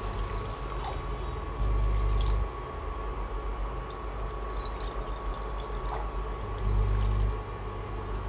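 Water being poured from a glass bowl into a pressure-cooker pan full of sautéed brown rice and vegetables, getting louder twice as the stream grows heavier.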